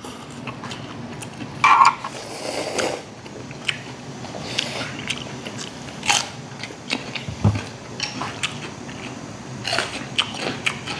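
Close-up eating sounds of two people at naengmyeon (cold buckwheat noodles): chewing and slurping, with crunchy bites of raw cucumber and many small clicks and taps. A short louder noise comes just under two seconds in.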